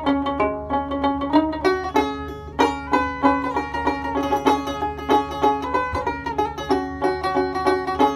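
Background instrumental music of quick plucked string notes with a steady beat.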